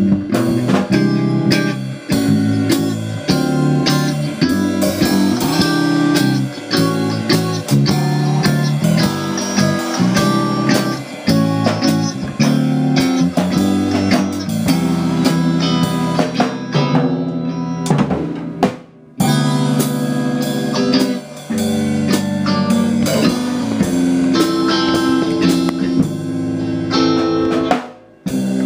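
Live rock jam by a small band: electric guitar and electric bass playing over a drum kit. The sound drops out briefly about two-thirds through.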